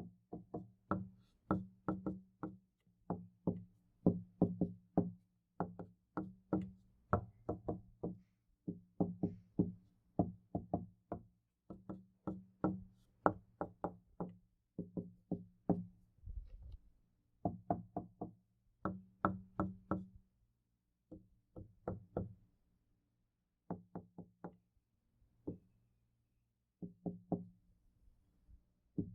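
Knocking on a door in quick groups of two to four raps, each rap with a low hollow ring from the door. The groups come in close succession at first and more sparsely, with longer gaps, in the last third.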